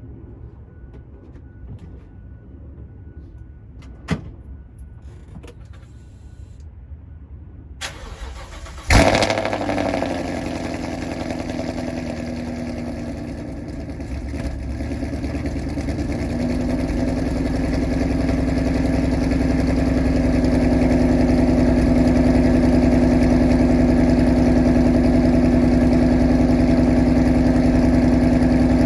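Ford Mustang S550 cold-started after sitting all winter with its battery out. A sharp click comes about four seconds in. About nine seconds in the engine fires with a loud flare and settles into a steady idle that dips, then climbs and holds. The owner takes the idle for the engine relearning it after months without power.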